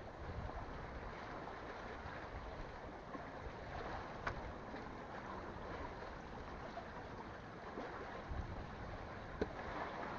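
Steady wind-and-sea-water ambience, with a couple of faint sharp clicks about four seconds in and again near the end.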